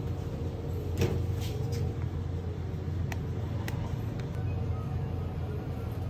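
Steady low hum and rumble of supermarket refrigerated freezer cases and store ventilation, with a few faint clicks about one, three and nearly four seconds in.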